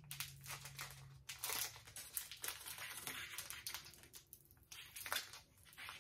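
Foil wrapper of a Pokémon booster pack crinkling in short, irregular crackles as fingers pinch and tug at its sealed top to tear it open. The crinkling is faint.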